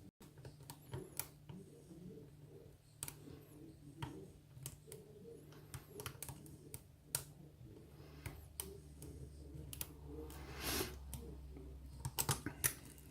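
Faint, scattered metallic clicks and scrapes of lock picks and a tension wrench in an ISEO pin-tumbler cylinder as tension is let off to reset the pins after an overset, with a short rustle of handling about ten seconds in.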